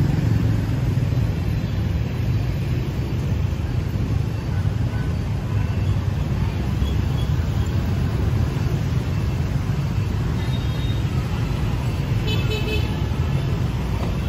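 City street traffic with a steady low rumble, and a short, high-pitched beep about twelve seconds in.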